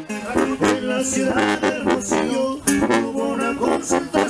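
Music: plucked string instruments with singing, at a steady beat.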